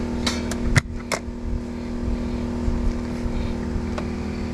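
Portable generator running steadily, with a few sharp clicks and one louder knock in the first second or so.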